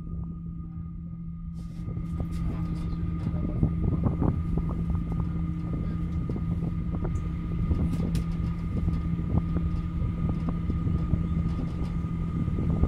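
Aerial cable car cabin running along its cables: a steady mechanical hum with a low tone and a fainter high whine, with frequent light clicks and rattles. A hiss of wind comes in about a second and a half in.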